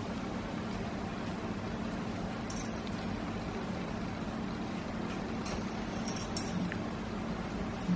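Small toy bell jingling in short bouts as a budgie plays with it, once about two and a half seconds in and again in several quick jingles around five and a half to six and a half seconds, over a steady low hum.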